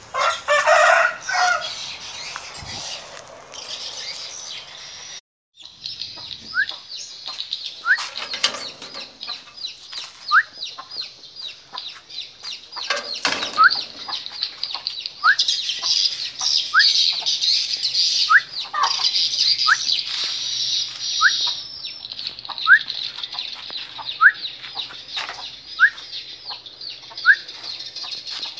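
A bird chirping: short rising chirps repeating about every second and a half over a steady high hiss, with scattered clicks. A louder rustling noise fills the first five seconds.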